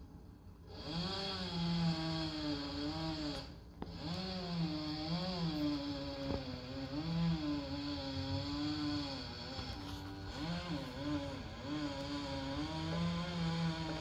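Chainsaw cutting, its engine pitch rising and falling with throttle and load. It starts about a second in, drops off briefly near four seconds and picks straight back up.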